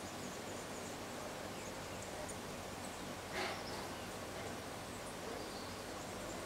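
Steady hiss of outdoor evening ambience with faint high chirps, and one short, louder sound about three and a half seconds in.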